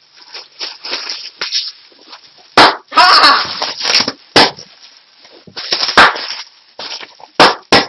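Plastic air-filled packing material being popped by hand: about six sharp, loud pops spread over the seconds, with crinkling of plastic between them.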